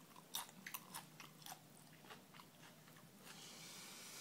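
A young child's eating sounds: several soft mouth clicks and smacks in the first second and a half, then a faint steady hiss near the end.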